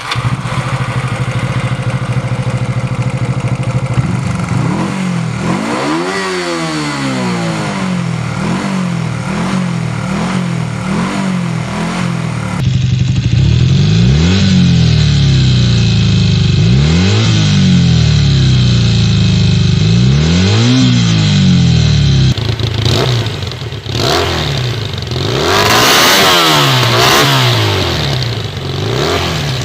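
Honda CB Super Dream motorcycle engines, three bikes in turn (CB125, CB250N, CB400N), each idling and being revved up and down through its exhaust. The sound changes abruptly about a third of the way in and again about three quarters of the way in as each bike follows the last.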